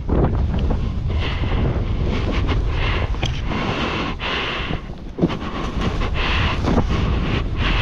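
Wind buffeting the camera microphone during a fast snowboard descent in powder, a rough low rumble, with the Jones Hovercraft splitboard's hiss through the snow swelling every second or two at the turns.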